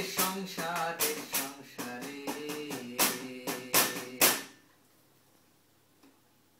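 A man's unaccompanied voice carries the song's tune without words over a rhythm of sharp hand slaps on the tabletop, several strikes a second. The song ends abruptly about four and a half seconds in, leaving near silence.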